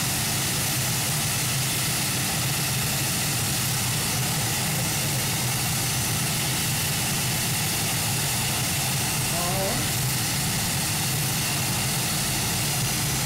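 Pulling tractor's engine idling steadily, a constant low rumble with no revving.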